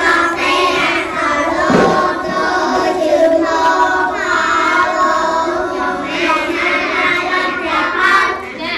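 A class of young children singing together in unison, in long held notes with no break.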